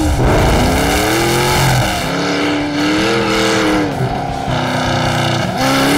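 Engine-swapped open race car driven hard: the engine's pitch climbs and falls about three times as the throttle is worked.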